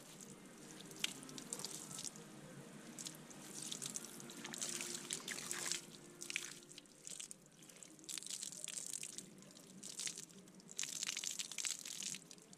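Hose water spraying and splashing onto rubber boots. The hiss of the spray comes and goes in irregular surges as the jet is moved over the boots.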